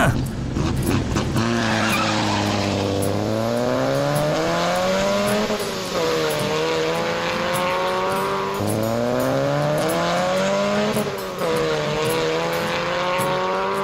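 Pickup truck engine accelerating hard through the gears, its pitch climbing for a few seconds and then falling back at each gear change, about three times, with wind rushing past the microphone in the open bed.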